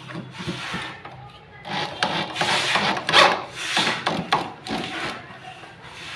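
Electric drill driving screws through the steel arm of a hydraulic bed-lift fitting into the wooden bed frame, in several short rasping bursts with a few clicks.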